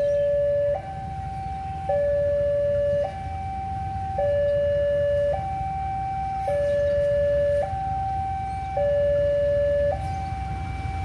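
Railway level-crossing warning alarm sounding its two-tone signal, a lower and a higher tone taking turns a little over a second each, the lower one louder: the warning that a train is approaching the crossing. A steady low rumble runs underneath.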